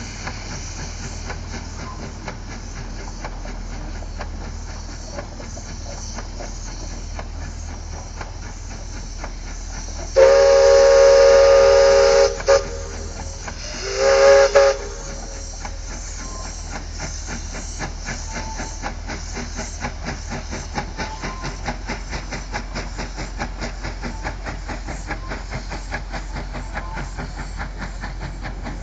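Narrow-gauge steam locomotive working its train along, a steady hiss, sounding its steam whistle: one long blast of about two seconds, a short toot, then a second blast of about a second.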